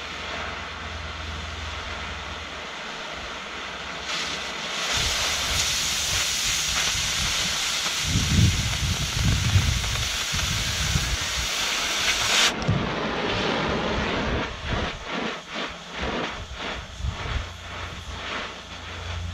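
Oxy-fuel cutting torch cutting steel stock. About four seconds in, the cutting oxygen opens into a loud, harsh hiss that lasts about eight seconds and cuts off suddenly, leaving a softer, fluttering flame hiss.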